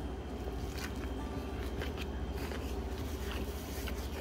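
Faint chewing of a bite of fried snapper sandwich, with a few soft crunches, over a steady low hum.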